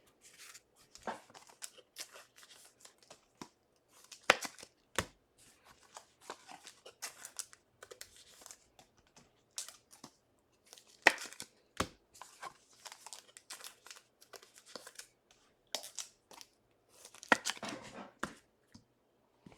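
The foil wrapper of a trading card pack being torn open and crinkled by hand. The crackles and tearing noises are quiet and come on and off.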